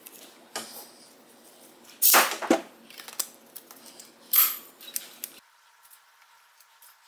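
A few short scraping and clacking handling noises as wheel parts are worked on a bench, the loudest about two seconds in; about five seconds in the sound cuts abruptly to a faint, thin hiss.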